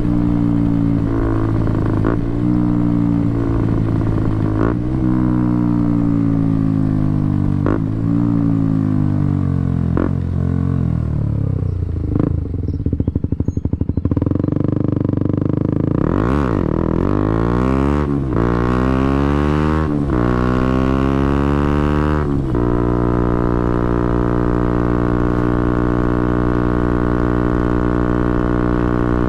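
KTM Duke 125's single-cylinder four-stroke engine through a Scorpion exhaust with the dB killer removed, heard onboard: the revs fall in steps as the bike slows and shifts down, then climb again through several quick upshifts, and the engine holds a steady pitch for the last several seconds.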